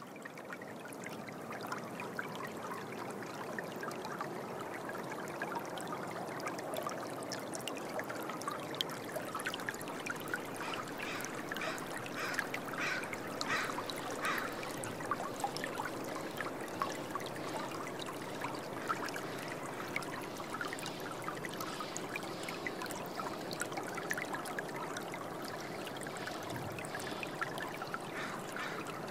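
Running water, a steady trickling stream, swelling up over the first second or two and then holding even.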